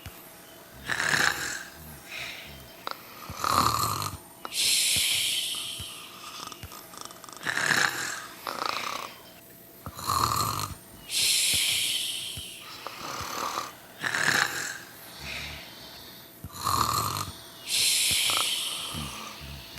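Snoring in a regular cycle that repeats about every seven seconds: a short snore, a louder, deeper snore about two and a half seconds later, then a long hissing breath out, three times over.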